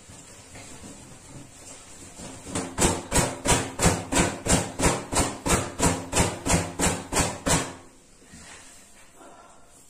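Wet hair being shaken out and beaten dry with the head bent over: a regular run of about fifteen slapping thuds, about three a second, starting some two and a half seconds in and stopping about two seconds before the end.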